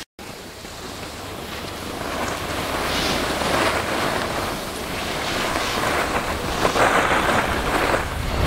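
Wind rushing over the camera microphone during a downhill ski run, growing louder over the first few seconds as speed builds, with swells of skis hissing and scraping over packed snow in the turns.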